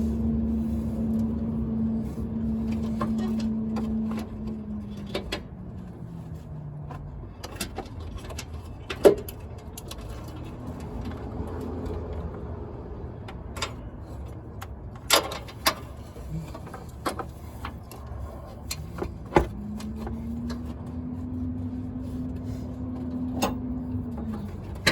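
A steady motor hum that winds down a few seconds in and comes back up again near the end, with scattered sharp clinks and knocks.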